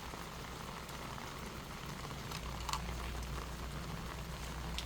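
Steady rain falling, an even hiss, with a couple of sharper drop taps about three seconds in and again near the end.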